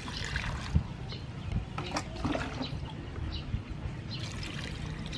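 Water poured from a plastic dipper into a stainless steel bowl of basil, leaves and lemongrass stalks, splashing and trickling over the vegetables as they are rinsed. A sharp knock comes just under a second in.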